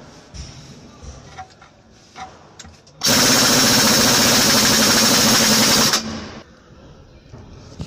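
Cordless impact wrench hammering on the differential's pinion flange nut for about three seconds, starting about three seconds in and stopping abruptly. A few light tool clicks come before it.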